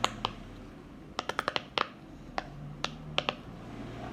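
Silicone pop-it fidget toy having its bubbles pushed through, making a string of sharp little pops: a few at the start, a quick run of them about a second in, then several more spaced out.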